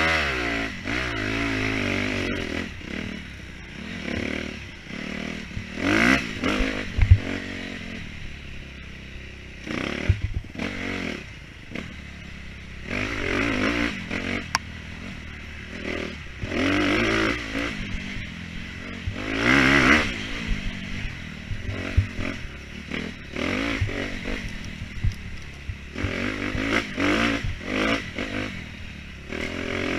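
Off-road motorcycle engine being ridden hard, revving up and dropping back again and again every few seconds, with knocks and rattles from the bike over rough ground.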